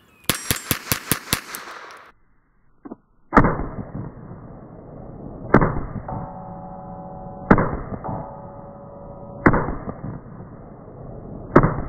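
Raven Arms MP-25 .25 ACP pistol shots. A quick string of sharp cracks comes in the first two seconds. After a short silence, slowed down, come five deep, muffled booms about two seconds apart, each dying away slowly, with a ringing tone between some of them.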